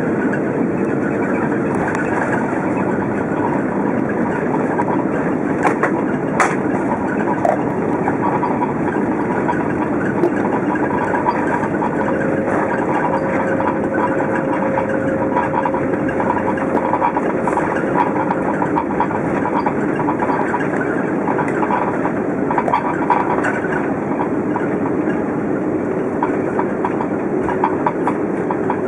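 Airbus A330 cabin noise during the landing rollout: a steady rumble of the landing gear rolling on the runway mixed with engine noise, heard from inside the cabin, with a few light clicks.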